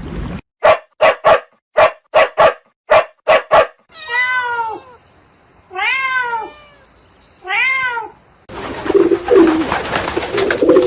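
A cat meowing three times, each meow a long call rising then falling in pitch. Before the meows there is a quick run of about ten short, sharp sounds, and near the end a rougher, noisy stretch.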